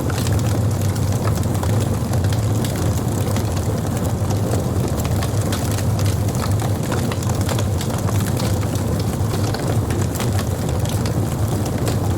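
Wood burning on a campfire: a steady low rumble of flames with frequent small crackles and pops scattered irregularly throughout.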